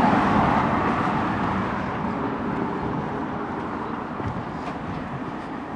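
Rushing noise of a passing vehicle, starting suddenly at full strength and slowly fading away.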